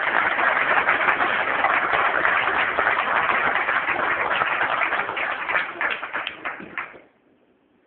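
Audience applauding, dense clapping that thins to a few scattered claps and stops about seven seconds in.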